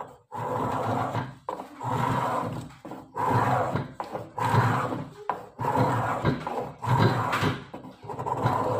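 Metal spokeshave shaving an English willow cricket bat blade: about seven scraping strokes, each roughly a second long with short breaks between, as the bat's profile is shaped.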